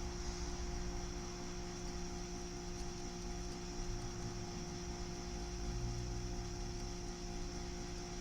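Steady electrical mains hum with a faint high whine and hiss, unchanging throughout.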